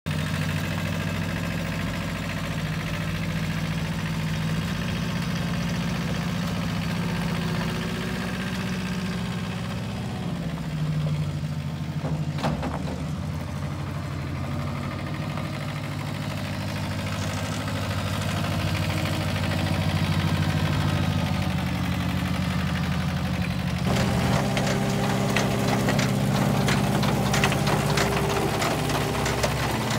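KL Truck L2E 1500 feed truck running with a steady low hum as it is driven on gravel, with one brief knock partway through. About 24 seconds in, a rapid metallic clatter joins the hum, typical of its toothed discharge conveyor starting up.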